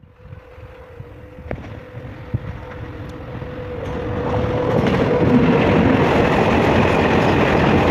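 Electric locomotive hauling a freight train of flat wagons approaches and passes close by. The rumble of wheels on rail grows louder about four seconds in and stays loud as the wagons roll past.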